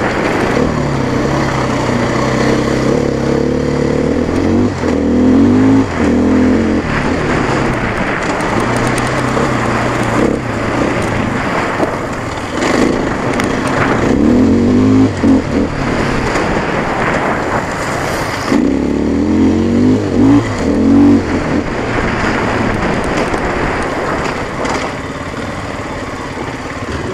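Dirt bike engine running under way, its pitch rising and falling repeatedly as the rider opens and closes the throttle.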